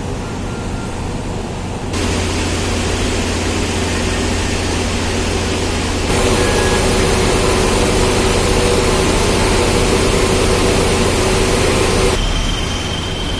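Steady engine and machinery noise with a low hum and a few faint steady tones. It jumps louder about two seconds in and again about six seconds in, then drops back near the end, as the recording cuts between shots.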